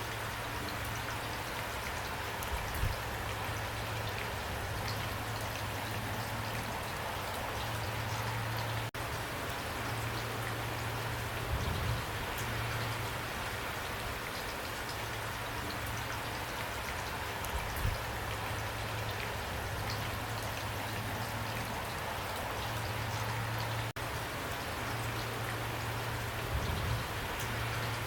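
Steady pouring rain, a dense even hiss with scattered drops ticking through it. A few dull low thumps come about every six to nine seconds.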